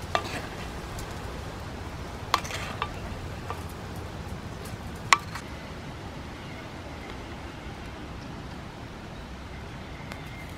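A wooden spoon knocking sharply against clay cookware three times as cooked squid is served from a clay pot into a clay bowl, the third knock the loudest, over a steady low rumble of outdoor background noise.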